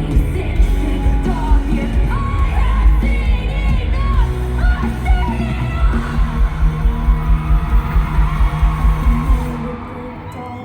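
Live band music played loud through a concert sound system, with heavy bass, a steady drum beat and a wordless singing line, and yells and whoops from the crowd. The music drops away sharply near the end.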